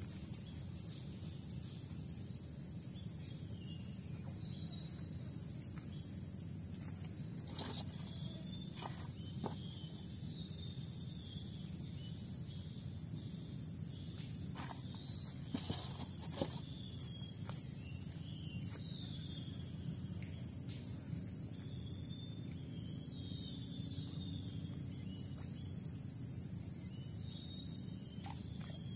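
Steady high-pitched insect chorus, with short high chirps scattered through it. A few brief clicks and knocks stand out around eight and sixteen seconds in.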